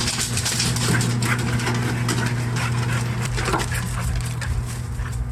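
A dog whimpering and whining in short high cries, over a steady low hum and small clicks and rustles.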